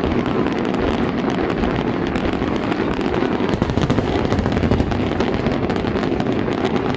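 Big fireworks show going off: a dense run of bangs and crackles, one after another, over a continuous low rumble.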